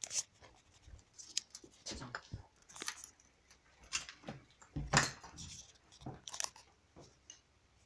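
Handling noise of a hand-held camera being passed through and carried, with scuffing footsteps on a gritty, debris-strewn floor: irregular clicks, scrapes and knocks, the loudest knock about five seconds in.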